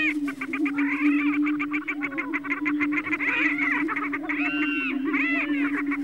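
A chorus of male prairie chickens displaying on their lek. A steady low booming drone runs underneath. Over it comes a fast chatter of about a dozen notes a second through the first half, then arching calls that rise and fall near the middle and again near the end.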